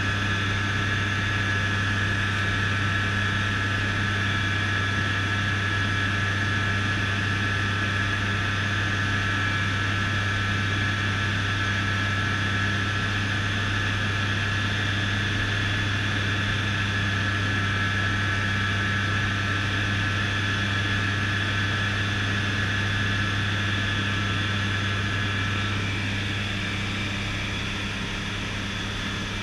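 Rotax 912 iS Sport four-cylinder boxer engine and propeller of an F6 Hydran light aircraft in flight, heard inside the cockpit as a steady, even drone. Near the end the sound drops a little and its higher whine fades.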